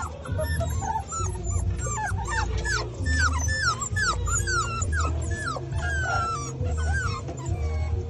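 American Pit Bull Terrier puppies whimpering and yipping in a quick run of short falling cries, over background music with a steady low beat.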